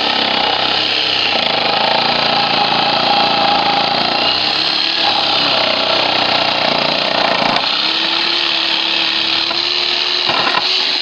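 Harbor Freight reciprocating saw cutting between pallet boards, its pitch changing as the blade meets load. About seven and a half seconds in, it settles into a steady whine.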